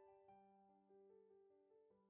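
Faint soft piano music: a slow melody of single notes over a held low note.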